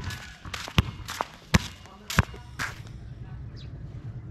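Five sharp knocks or slaps in the first three seconds, less than a second apart. A steady low hum sets in about three seconds in.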